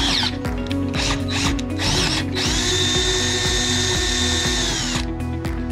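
Drill press drilling 8 mm holes through a metal square tube: a steady high whine that drops away at the start, breaks up for a couple of seconds, comes back steady and stops about five seconds in. Background music with a steady beat plays underneath.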